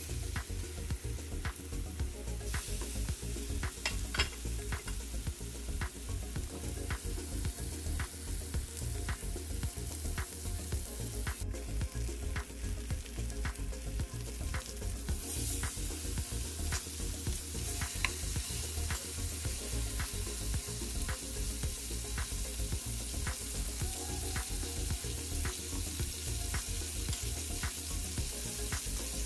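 Bone-in ribeye steaks searing in hot oil in a Presto electric skillet: steady sizzling dotted with frequent small spattering pops. It grows louder a couple of seconds in and again about halfway through.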